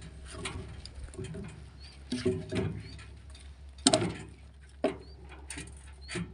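Cut pine logs knocking and scraping against each other and the trailer as they are shoved into place, with a hard wooden knock about four seconds in and another a second later. Short bird chirps sound now and then.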